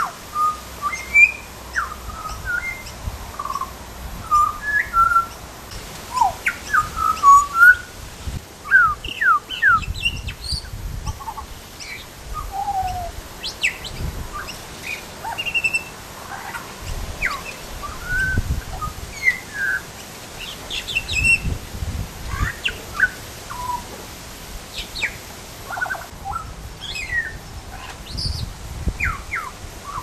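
Pied butcherbird singing: a loose series of short clear whistled notes that slide up and down in pitch, coming in runs with short pauses between.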